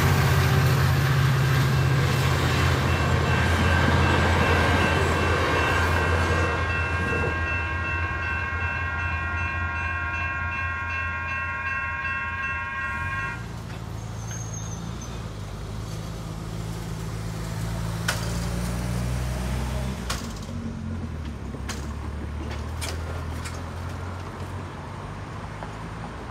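A Caltrain passenger train led by a diesel locomotive rumbles through a grade crossing while the crossing's electronic bells ring. The bells stop abruptly about 13 seconds in as the gates rise, leaving the hum of car engines waiting at the crossing and then pulling away.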